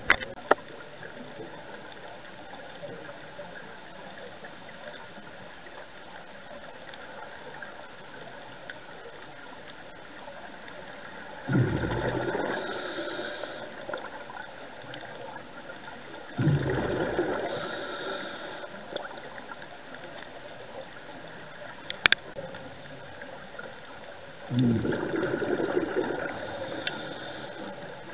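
A scuba diver breathing out through the regulator underwater: three gurgling bursts of bubbles, each starting suddenly and fading over two or three seconds, over a steady underwater hiss. A sharp click comes between the second and third burst.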